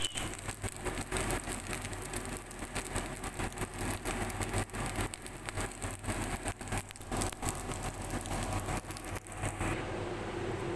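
Crackling hiss of fried rice sizzling in a pan on the stove, with many small clicks over a low hum. About a second before the end it gives way to a steady hum.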